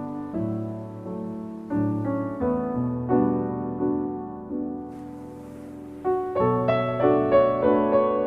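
Gentle, slow solo piano music: notes and chords struck every half second to a second and left to ring out.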